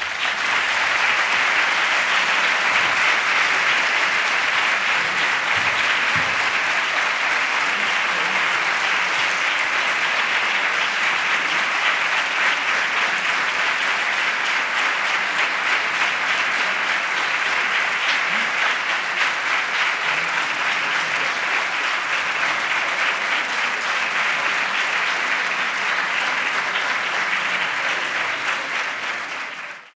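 Audience applauding: a long, steady round of hand-clapping that fades out at the very end.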